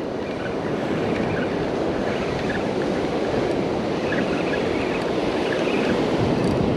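Steady rush of ocean surf breaking on a sandy beach, mixed with wind noise on the microphone.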